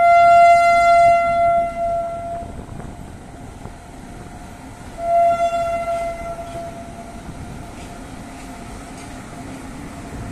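Horn of an Indian Railways WAG-9 electric freight locomotive: one loud blast of about two and a half seconds, then a second, shorter blast about five seconds in. Under and after the blasts, the low rumble of the locomotive and its wagons rolling past.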